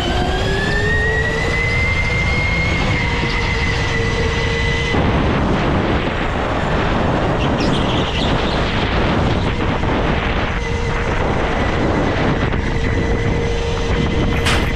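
Go-kart driving at speed, heard from the driver's seat: a whine rises in pitch over the first couple of seconds as the kart speeds up, then holds steady, drops away about a third of the way in and comes back steady later, over a constant rough rushing noise.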